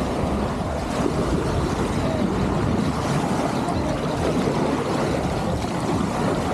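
Motorboat under way: a steady engine drone mixed with rushing water and wind on the microphone.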